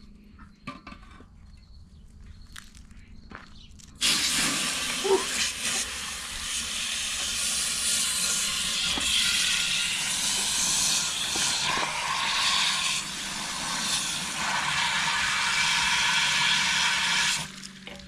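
Garden hose water rushing through a John Deere skid steer's diesel particulate filter and splashing into a wheel rim below: a plain-water rinse flushing soot out of the clogged filter. A few light knocks come first; the water starts suddenly about four seconds in and cuts off near the end.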